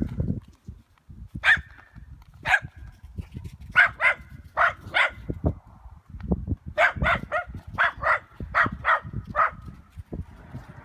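Small dog barking in short, sharp barks. A couple come singly, then a quick run of four, then a faster run of about nine over roughly three seconds.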